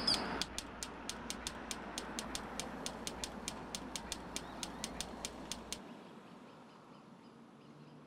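Typewriter keys striking in a steady, even run of about four clicks a second, stopping about six seconds in, over the rush of a passing car.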